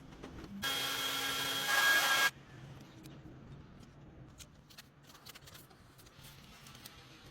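A loud steady hiss with a faint whine in it, lasting about a second and a half and stopping abruptly, followed by faint scattered clicks and taps.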